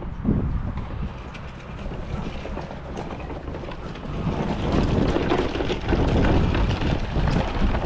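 Plastic wheels of a rolling cooler rattling over a dirt and gravel path, louder from about four seconds in.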